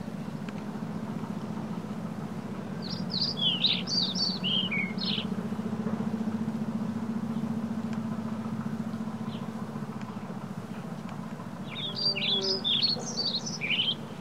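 A songbird singing two quick phrases of rapid high notes, one about three seconds in and another near the end, over a steady low hum from the moving eBike.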